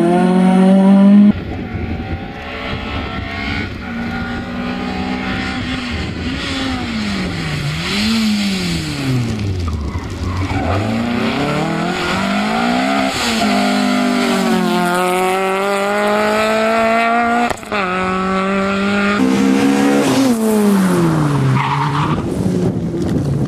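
Peugeot 306 rally car's four-cylinder engine revving hard, its pitch climbing through upshifts and dropping sharply as it brakes and downshifts for corners, with tyres skidding on the loose surface. Several passes are cut together, so the engine note changes abruptly a few times.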